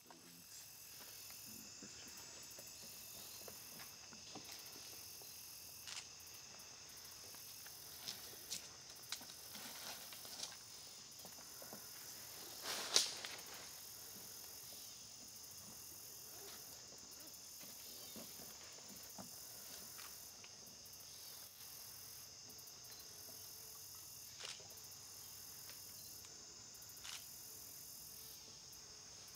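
Faint, steady, high-pitched chorus of insects such as crickets, with a few scattered short clicks and knocks, the loudest about halfway through.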